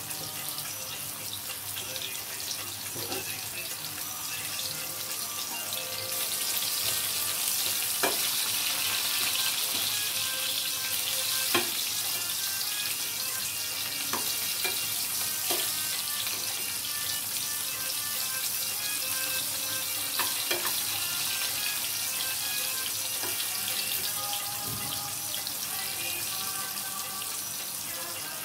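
Plantain slices sizzling in hot oil in a frying pan: a steady hiss that grows louder about six seconds in. Several sharp clicks of a metal slotted skimmer against the pan as the slices are stirred and turned.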